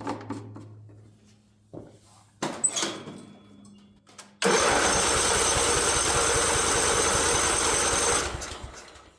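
A couple of small knocks, then the Craftsman riding mower's electric starter cranks the engine for about four seconds with a steady fast chugging, and the engine does not fire on gasoline. It stops, fading out near the end.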